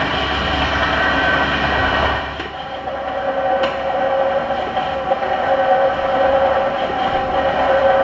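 Motorized treadmill running: motor whine and belt noise. About two seconds in the sound changes, the low rumble dropping away and a steady hum at two pitches taking over, with a single sharp click a little later.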